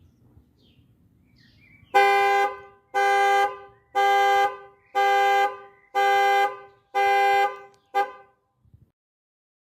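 Volvo/Polestar car horn sounding its panic alarm: six honks about half a second long, one a second, then a short seventh honk that cuts off.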